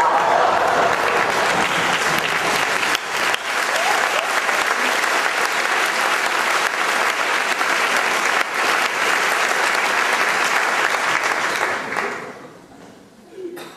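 Audience applause, a dense steady clapping, dying away about twelve seconds in.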